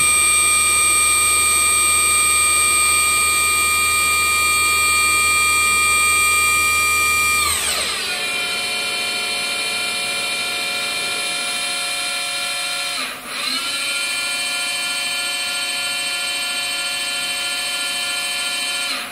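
Deckel-Maho DMU 80 T machining center's spindle running at speed with a steady high whine. About seven seconds in, the pitch slides down as it changes to a lower speed. It dips and comes back up briefly a few seconds later, then cuts off at the end.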